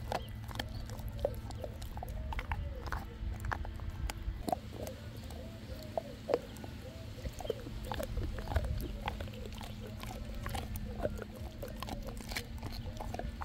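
A dog chewing raw lamb shank and ground beef: many sharp clicks and cracks, with a run of short rising-and-falling sounds repeating a few times a second.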